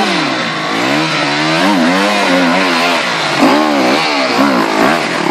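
Enduro dirt bike engine revved up and down over and over, its pitch rising and falling every half second or so, under load as the bike is ridden and pushed up a steep, muddy climb.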